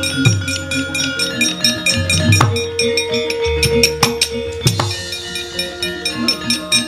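Javanese gamelan playing a brisk piece: kendang drums keeping a steady beat under ringing bronze metallophones and gongs, with a long held tone in the middle. Several sharp knocks cut through the music, the dalang's keprak and cempala cueing the puppets' movement.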